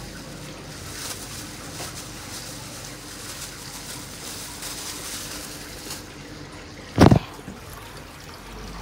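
Aquarium water trickling and bubbling from the tank's filter and aeration, a steady hiss that thins out about six seconds in. One loud thump about seven seconds in.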